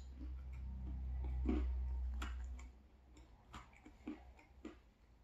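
Close-miked chewing of crispy thin-crust pizza: a string of short wet mouth clicks and crunches, several a second. A low rumble runs under the first two and a half seconds, then fades.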